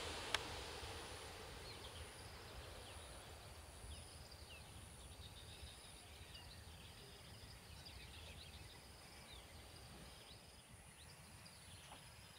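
Jet engine noise of a departing Boeing 737-900 fading away over the first couple of seconds. What is left is faint outdoor background of scattered bird chirps and a steady high insect buzz, with one sharp click just after the start.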